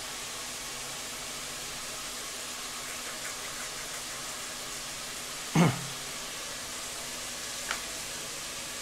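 Knife slicing green chillies on a plastic cutting board over a steady hiss, with one sharp knock of the knife on the board a little past halfway and a lighter tap near the end.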